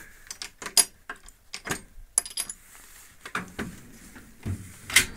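Metal hand tools and the drawers of a Snap-on Epiq steel tool chest being handled: a quick series of clinks, knocks and clacks, with a short metallic ring about two seconds in and a dull thump followed by a sharp clack near the end.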